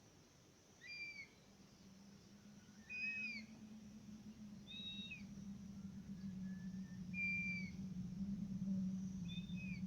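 A bird calling: five short whistled calls, each arching down in pitch, about every two seconds. Under them runs a low steady rush of wind that grows gradually louder.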